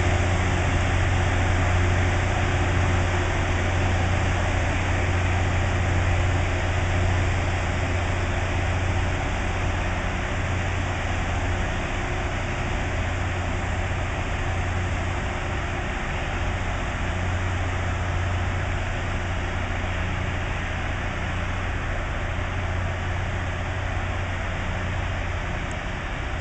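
Loram rail grinder grinding the rails under power: a steady, dense grinding noise over a low engine hum, slowly getting quieter as the train moves away.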